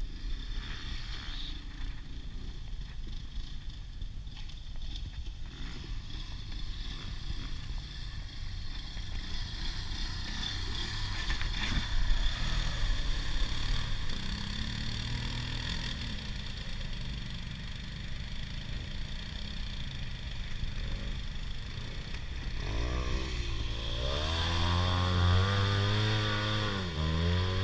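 Off-road vehicle engine running at low throttle. About twenty-two seconds in, it revs up and holds a strong steady pitch, then dips briefly and picks up again near the end.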